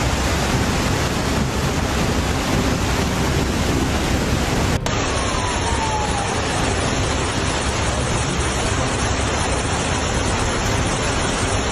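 Loud steady rush of water, with an abrupt change in the sound about five seconds in.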